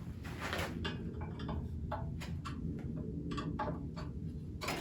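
Light, irregular clicks and taps of small metal parts being handled as a plate is taken off a Craftsman 12-inch bandsaw during blade removal, over a faint steady low hum.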